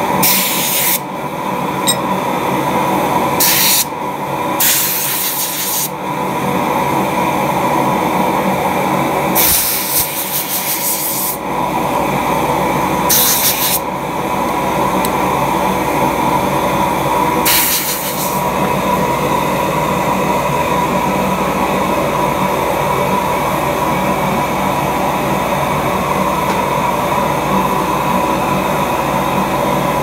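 Six short bursts of spray hissing over a stack of cut sawblade-steel pieces, blasting off grinding dust before welding. A loud, steady running noise lies under the bursts throughout.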